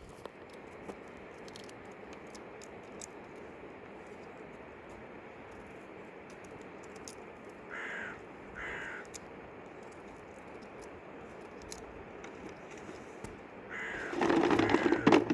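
Two short animal calls about eight seconds in, then a louder, longer run of calls near the end, over a steady background hiss.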